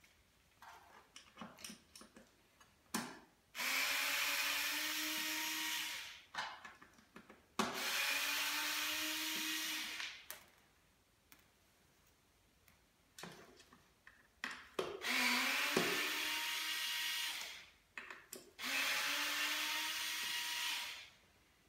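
Cordless drill-driver running in four separate spurts of a couple of seconds each, backing out the four screws that hold a stroller's plastic front plate. Each run rises a little in pitch as the motor spins up, with small clicks of handling between them.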